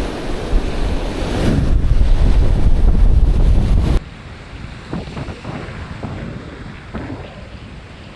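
Strong wind buffeting the microphone over beach surf, loud and heavy in the low end. About halfway it cuts abruptly to a much quieter stretch of surf and wind with a few faint knocks.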